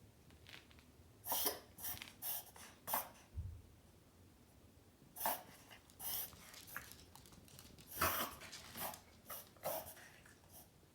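A 7 lb Morkie (Maltese–Yorkshire terrier mix) having a reverse sneezing attack: short, harsh breaths pulled in hard through the nose, in three bouts of a few each with pauses between. Such attacks are common in Maltese and Maltese mixes, and a vet has found this dog to be fine.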